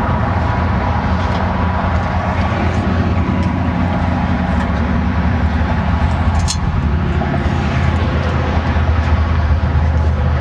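Steady low rumble of an engine running, unchanging throughout, with a brief faint click about six seconds in.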